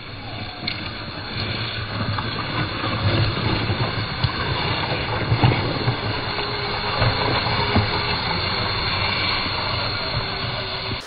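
A home-built LEGO Technic RC truck driving over rough outdoor ground, heard close up: a steady, noisy rumble and rattle from its wheels and small electric drive motors.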